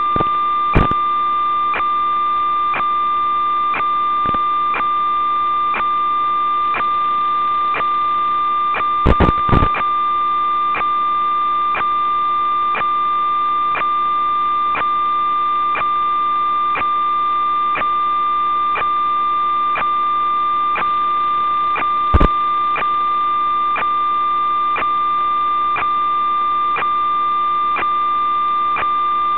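Steady electronic tone with a faint tick about twice a second, the audio-channel noise of an analog FPV video link recorded with the goggle feed; a few louder sharp clicks break in about nine seconds in and again near twenty-two seconds.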